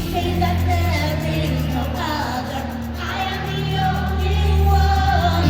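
Pop song with a sung vocal line held over a steady bass, drumbeat dropping out in the middle.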